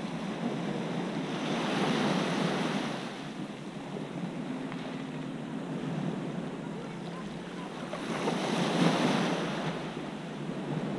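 Small sea waves washing up onto a pebble beach, a steady rush that swells twice, about two seconds in and again near the end.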